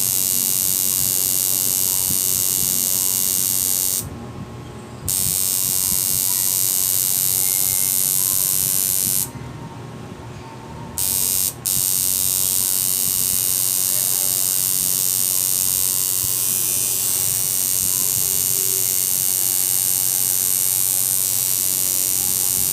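Electric tattoo machine buzzing steadily while needling color into skin. It stops about four seconds in, stops again for nearly two seconds around nine seconds in, and cuts out once very briefly just after.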